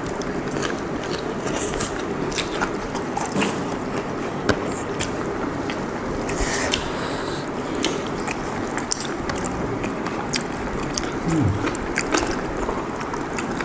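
Eating sounds: pork being bitten and chewed, with many small sharp clicks and crackles over a steady hiss.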